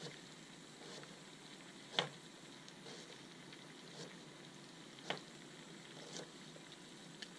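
Knife slicing an onion into half rings and knocking on a cutting board: sharp separate knocks about once a second, the loudest about two seconds in. Under them, a faint steady sizzle of vegetables frying in the pot.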